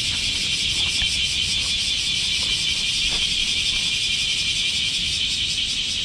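Cicada song: a steady, shrill high-pitched drone with a fast pulsing grain.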